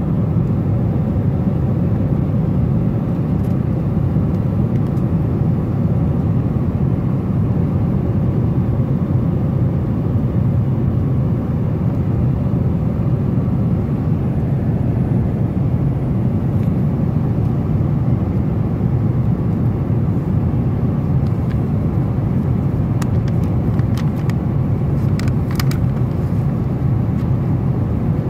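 Steady, loud rumbling cabin noise of a Boeing 777-200ER in flight: airflow and engine drone heard from a seat near the back, with a few faint clicks near the end.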